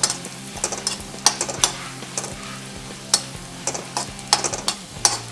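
Spoon stirring a tadka of garlic, dried red chillies and chilli powder in hot oil and butter in a metal kadhai, clinking and scraping against the pan in a dozen or so sharp strokes. Under it the oil gives a faint sizzle, still hot after the flame is turned off.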